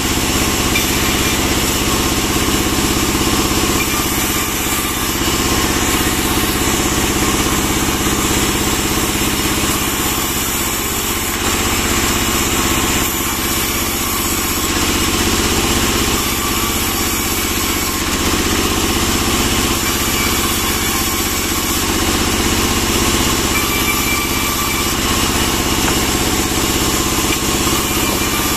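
Band sawmill running steadily while pine boards are fed through the blade: a continuous mechanical drone with no clear breaks.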